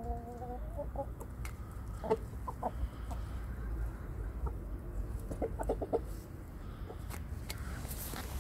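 Aseel chickens clucking while feeding: a held call in the first second, then scattered short clucks, with a quick run of clucks about two-thirds through. Occasional sharp ticks of beaks pecking grain from a metal bowl.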